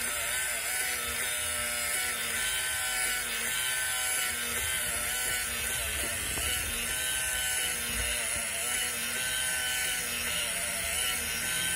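HP 82240B thermal printer printing slowly line by line, its print head and paper feed making a steady mechanical buzz with wavering tones as the paper advances.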